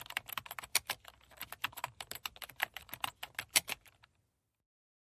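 Typing on a computer keyboard: a fast, uneven run of key clicks that stops about four seconds in.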